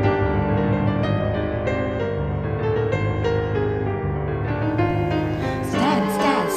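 Slow background music led by piano over a steady bass. A voice comes in near the end.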